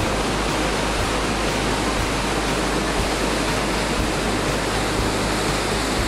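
Krimml Waterfalls, a large alpine waterfall, pouring down a rock face: a loud, steady rush of falling water.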